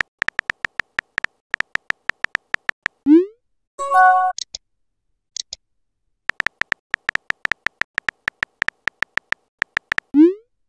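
Simulated phone keyboard tap sounds, about six quick clicks a second, as a text message is typed. About three seconds in the taps stop for a short rising pop as the message sends, followed by a brief chime; the taps then resume, and another rising pop comes near the end.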